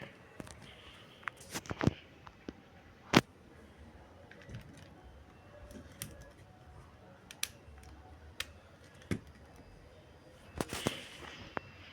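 Scattered sharp clicks and knocks, about a dozen at irregular intervals, the loudest about three seconds in and a small cluster near the end, over faint steady background noise.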